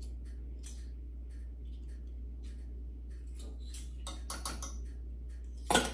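Light clicks and scrapes of a metal measuring spoon against a small spice jar and the rim of a saucepan while a fraction of a teaspoon of spice is measured out and tipped in, with one sharper knock near the end. A steady low hum runs underneath.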